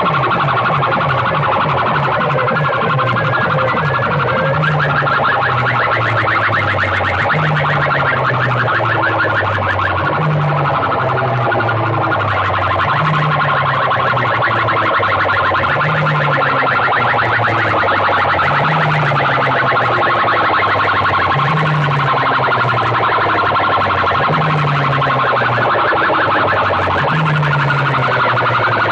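Stacked banks of horn loudspeakers in a sound-system competition blaring loud electronic music, a repeating low bass figure cycling about every second and a half under a dense, unbroken mid-range tone.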